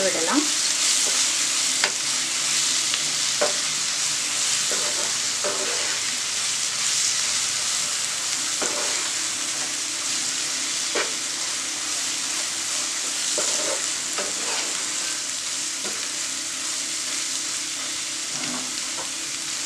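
Sliced onions and spice powders sizzling in hot oil in a nonstick pan, stirred steadily with a wooden spatula. A steady frying hiss, with short scrapes and taps of the spatula against the pan every few seconds.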